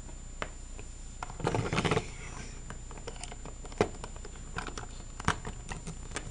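Plastic Littlest Pet Shop toys handled and moved on a hard tabletop: scattered light clicks and knocks, two sharper taps in the second half, and a short rubbing scrape about a second and a half in.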